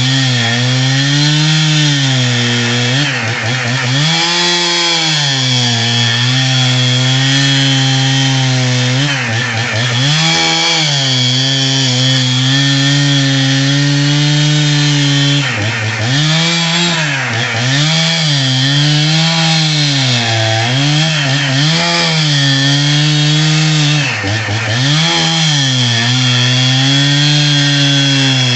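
Husqvarna 61 two-stroke chainsaw at full throttle, rip-cutting a log lengthwise into planks. The engine pitch repeatedly sags as the chain bites and picks back up.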